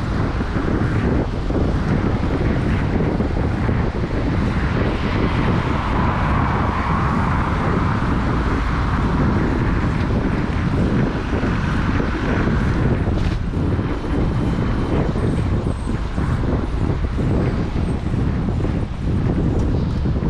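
Wind buffeting an action camera's microphone on a moving bicycle, mixed with road and traffic noise. The traffic hiss swells and fades in the middle, and there is a sharp click about thirteen seconds in.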